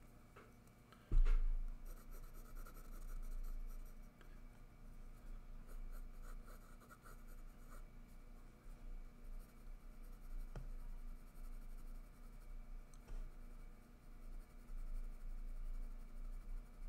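4B graphite pencil shading and hatching on sketchpad paper: faint scratchy strokes in runs. A single sharp knock about a second in is the loudest sound.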